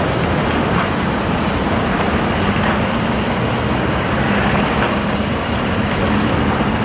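Engine of a passenger minibus running at low speed with a steady low hum as the bus crawls through potholes, with traffic noise around it.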